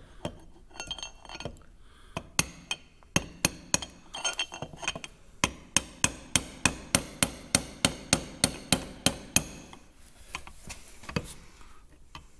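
Hammer tapping a seal into the end of a tank clutch shaft, working round its rim. The sharp metallic strikes come scattered at first, then in a steady run of about three a second for some four seconds, and then thin out near the end.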